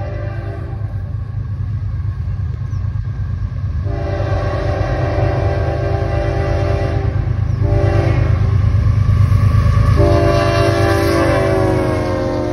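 Diesel freight locomotive's air horn sounding long, long, short, long, the grade-crossing signal, over the rumble of the diesel engines as the train approaches. The last long blast drops in pitch as the locomotive passes close by.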